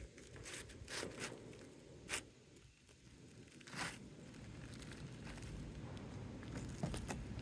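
Faint, short scraping and tearing sounds of an asphalt shingle being cut down to size, a few separate strokes with quiet in between.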